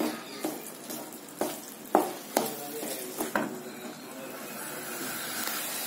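Slotted wooden spatula stirring thick carrot halwa in a metal pan, knocking against the pan several times in the first three seconds or so, over a steady sizzle of the mixture cooking in ghee. After that only the sizzle continues. The halwa is thick and close to done.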